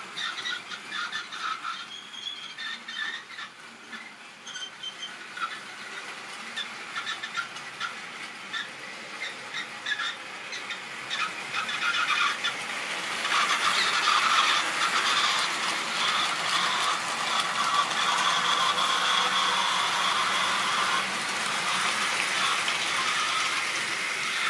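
Model railway trains running on sectional track: scattered clicking of wheels over rail joints, then from about thirteen seconds in a louder, steady high-pitched running of a locomotive motor and wheels as a train passes close by, easing off a few seconds before the end.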